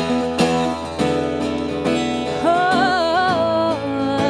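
Acoustic guitar strumming a steady accompaniment, with a woman's voice holding a wordless note with vibrato from about two and a half seconds in.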